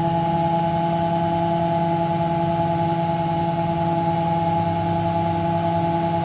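Beko washing machine in its final spin, the drum turning at a steady high speed with the motor's hum and whine holding one pitch.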